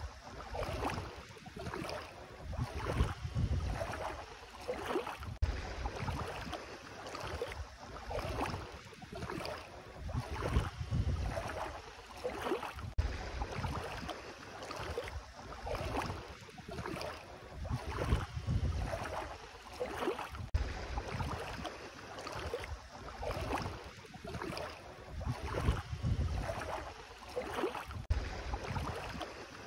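Bare feet wading through ankle-deep sea water, splashing with each step about once a second. Low wind rumble on the microphone swells every several seconds.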